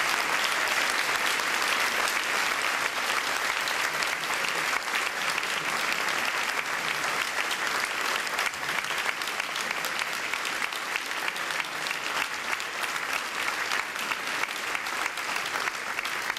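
Audience applauding, a dense patter of many hands clapping that eases off a little toward the end.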